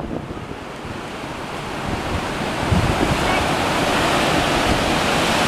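Water rushing out through open dam gates, a steady noise that grows louder about halfway through, with wind buffeting the microphone.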